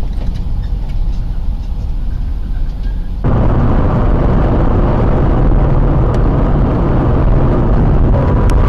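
Dash-cam recording of a car on the road: steady low engine and road rumble, which becomes louder and heavier after an abrupt cut about three seconds in.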